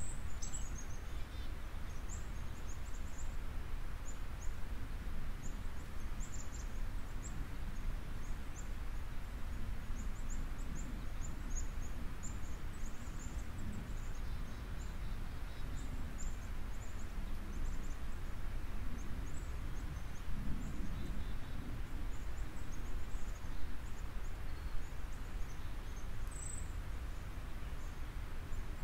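Steady outdoor background noise with a low hum, with many short, high bird chirps scattered throughout.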